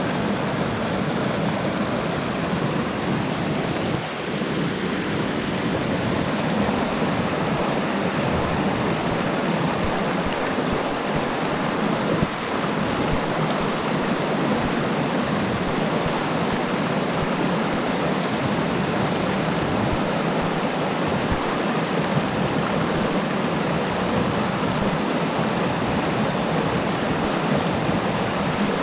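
Rushing mountain stream running full with rainwater: a steady, even rush of water.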